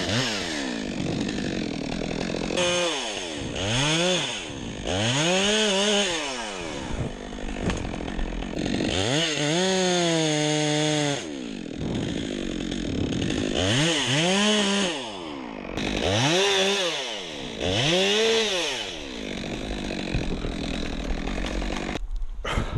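Stihl chainsaw cutting into a leaning tree trunk, the engine revving up and dropping back about seven times, held at full throttle for about two seconds in the middle. The engine cuts off near the end.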